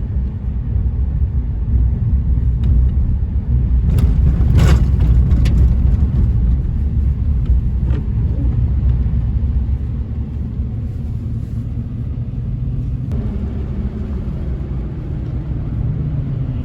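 Car driving on a rain-soaked road: a steady low rumble of engine and tyres, with a short sharp knock about four and a half seconds in.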